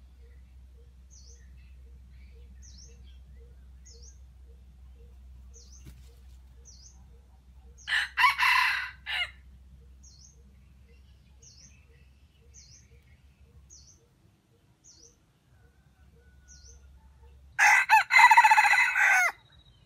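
Red junglefowl rooster crowing twice: a short crow about eight seconds in and another near the end. Between the crows a faint high chirp repeats every second or so.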